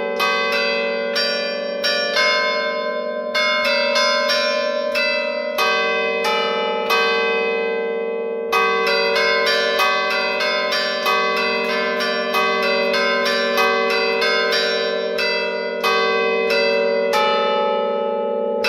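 Church bells played from a ringer's baton keyboard: chains pull the clappers against the fixed, hanging bells in a quick festive tune (suonata d'allegrezza). The strikes come several a second and overlap, ringing on over a steady hum.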